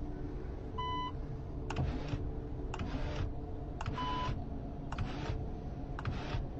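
Two short electronic beeps, about three seconds apart, over a steady low hum. A short swishing noise starting with a click repeats about once a second.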